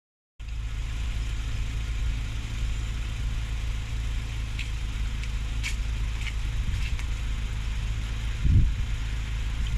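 Low steady rumble of an M62 diesel locomotive's engine running in the distance, with a few faint ticks in the middle and a louder bump near the end.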